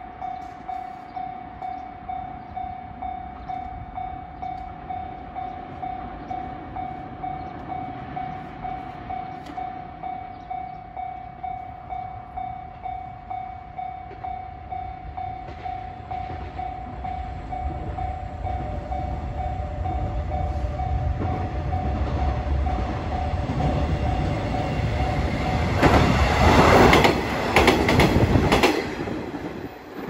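Level-crossing warning bell ringing at about two strokes a second. Halfway through, the rumble of a two-car KiHa 120 diesel railcar train builds up, and near the end the train passes loudly, its wheels clacking over the rail joints.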